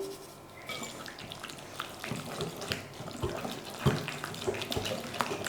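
Runny hummus-and-oil salad dressing being stirred in a bowl with a spoon: wet sloshing with many small irregular clicks and scrapes and a few soft knocks.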